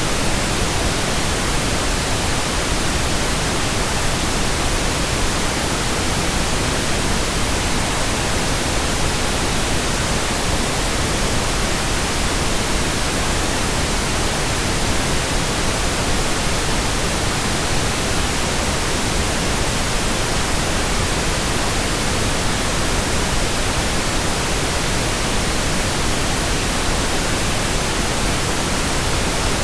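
Steady, unchanging white noise: an even hiss spread across all pitches at a constant level.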